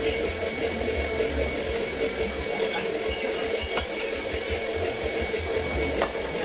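Steady mechanical hum holding a constant tone, with a couple of light clinks of metal bowls being handled, about four seconds in and again near the end.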